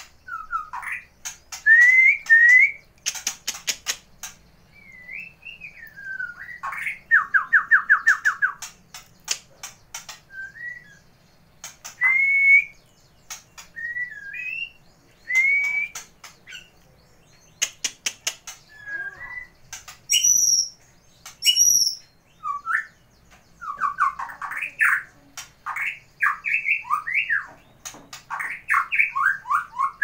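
White-rumped shama (murai batu) singing a varied song: rising whistled phrases, a fast trill and loud bursts of rapid sharp chips, with a few high thin notes about two-thirds of the way in.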